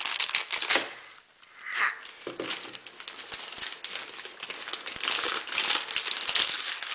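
Gift-wrapping paper being torn and crumpled by hand as a present is unwrapped, a busy crackling rustle that briefly eases about a second in.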